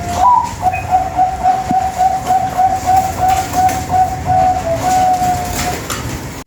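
Zebra dove (Bangkok-type perkutut) singing: a short rising opening note, then a fast rolling string of coos at about four a second that ends in two longer drawn-out notes.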